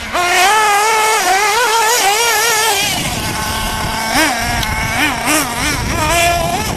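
Small nitro glow engine of a radio-controlled truck running at high revs, its pitch rising and falling over and over as the throttle is opened and eased.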